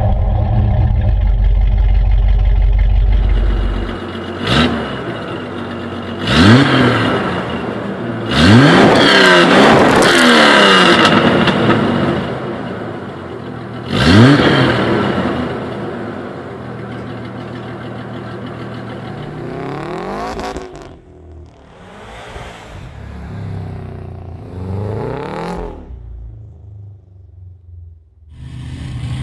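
Several car engines heard through their exhausts, one after another. First a Jeep Grand Cherokee 5.9 V8 rumbles steadily at idle. Then a 1995 Jeep YJ Wrangler's engine is blipped hard several times, each rev a quick rising surge. Last comes a quieter engine with a few softer revs, a Subaru Forester STi.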